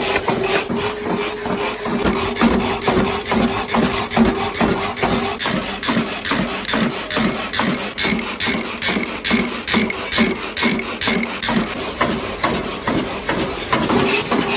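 A factory machine running with a steady hum and a rapid, even knocking of about four strokes a second.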